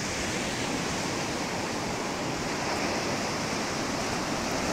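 Ocean surf washing up the beach and breaking over rocks: a steady rush of sea noise that swells slightly near the end.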